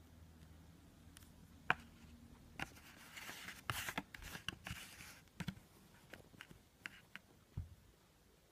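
Scattered small clicks and knocks of a Xuron Midget Diagonal Plier being handled, opened, closed and set down, the sharpest click a little under two seconds in. In the middle comes a few seconds of light scraping and rustling as a hand moves over its cardboard package.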